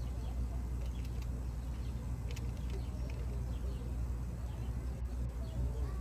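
Outdoor park ambience: a steady low rumble with faint bird chirps here and there.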